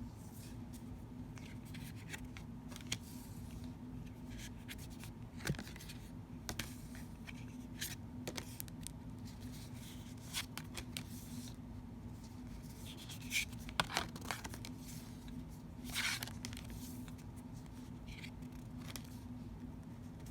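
Glossy oracle cards being handled: scattered light clicks, slides and scrapes as cards are flipped and laid against one another, with a cluster of louder ones past the middle. A steady low hum runs underneath.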